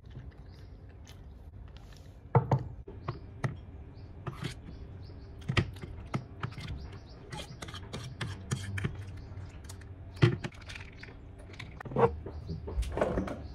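A metal fork clinking and scraping against a ceramic plate while eating: quiet for about two seconds, then irregular sharp clinks, with a few louder knocks near the end.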